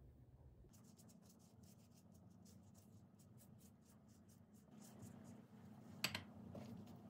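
Pastry brush spreading oil over a thin sheet of rolled-out dough: quick, faint strokes for about four seconds. A single sharp tap comes about six seconds in.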